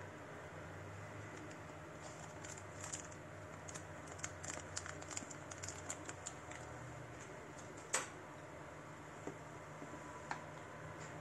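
Light clicks and small handling noises from a car stereo and its box contents being handled, with a sharper click about eight seconds in, over a steady low hum.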